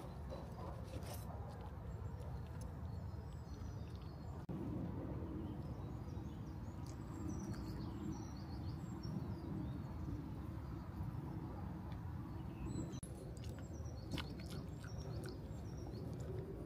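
Small birds chirping in short, high calls scattered through, over a steady low outdoor rumble.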